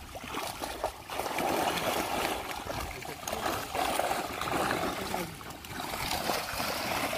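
Water splashing and draining off a fishing net as it is hauled out with tilapia in it, in two surges with a brief lull about five seconds in.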